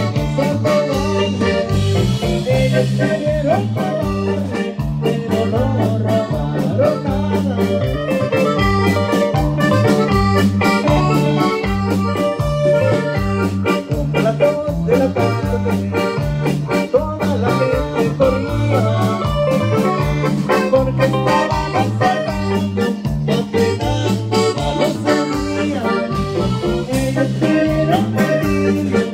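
Live band playing a corrido with saxophone, keyboard, electric bass and drums, on a steady beat.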